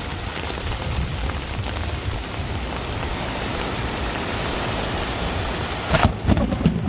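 Heavy rain falling steadily with a low rumble of thunder underneath. Near the end the sound changes abruptly to louder, closer rain with irregular knocks.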